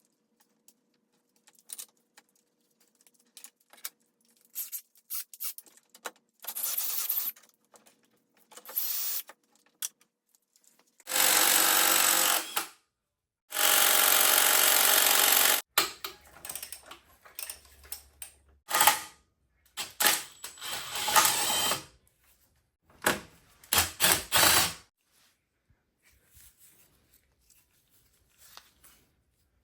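A handheld power tool runs in two steady bursts of about two seconds each, a little past the middle. Shorter bursts of noise and knocks follow, typical of tools working on the car.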